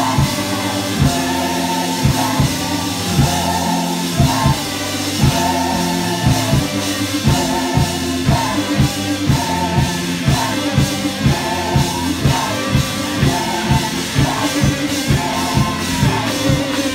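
Live gospel music: voices sing a short phrase over and over above a band with steady low bass notes and an even beat.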